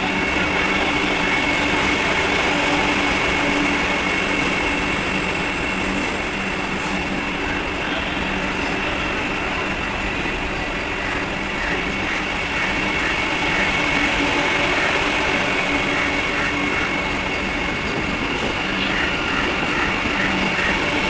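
Vande Bharat Express electric multiple unit pulling out of the platform, its coaches rolling past with a steady running noise, an even high whine and a low hum.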